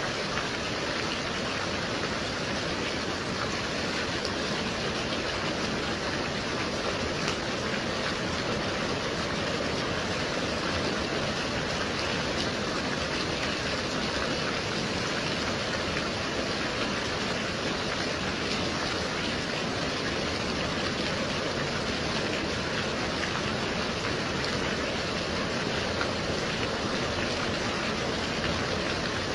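Steady gentle rain falling, an even wash of rain noise that holds unchanged throughout.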